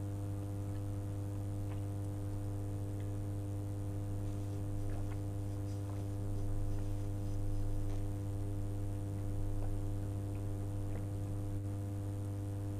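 Steady electrical mains hum with a ladder of overtones, over faint scattered clicks and mouth sounds; it gets slightly louder a little past the middle, while a drink is sipped from a glass.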